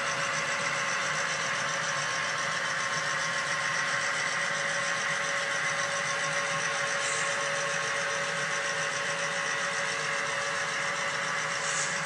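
HO scale model train running on the layout, giving a steady, even mechanical hum with a constant whine.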